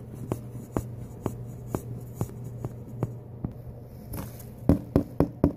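Light taps about twice a second, then four loud knocks near the end, a knock at the door, all over a steady low hum.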